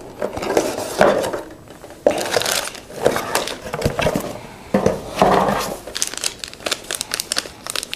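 Handling noise: irregular crinkling and rustling with light clicks and knocks, as of plastic items being picked up and moved about.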